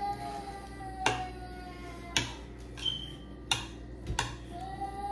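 Metal spoons clinking against plates and a glass bowl during a meal, with a handful of separate sharp clinks about a second apart. A long pitched tone that rises slightly and then falls sounds at the start and again near the end.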